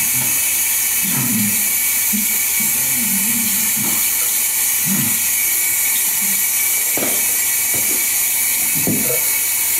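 Bathroom sink tap running steadily into the basin, with a few short sounds of a man rinsing his mouth and spitting over it.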